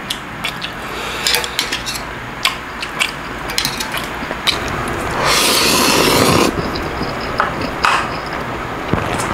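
Eating sounds: metal chopsticks clicking and small mouth sounds, then, about five seconds in, a loud slurp of ramen noodles lasting over a second. A few more clicks and mouth sounds follow.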